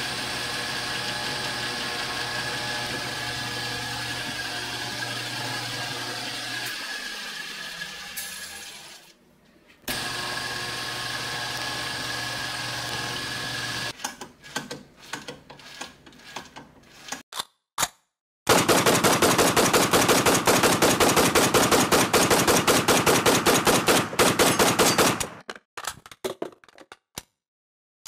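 Drill press motor running steadily with a low hum and a high whine. It slows and stops about eight seconds in, then runs again from about ten seconds. Scattered clicks follow, then a loud, fast rattle of many clicks a second lasting about six seconds.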